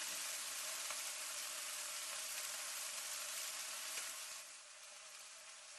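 Hot oil sizzling as it is poured onto ground Gangu chili flakes and stirred in, making chili oil. The hiss is steady and eases off about four and a half seconds in.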